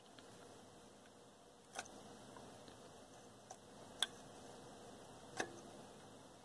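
Desoldering at a circuit board with a soldering iron and copper solder wick: a few faint, sharp clicks and ticks as the iron tip works the wick over the IC pins, the loudest about four seconds in, over low background hiss.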